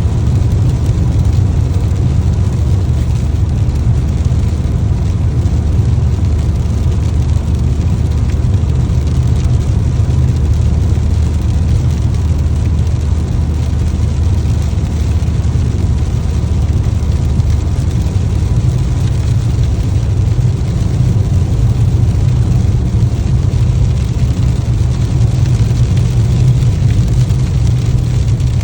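Car driving at a steady pace: a constant low engine and road rumble.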